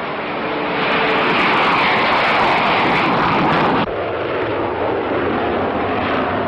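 Jet aircraft engine noise: a loud, steady rush. A little under four seconds in it breaks off abruptly at a film splice, and a quieter stretch of engine noise follows.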